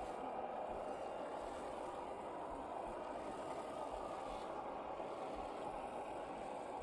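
Electric motors and gear drivetrains of 1/10-scale RC crawler trucks whirring steadily under load as they crawl through sticky mud.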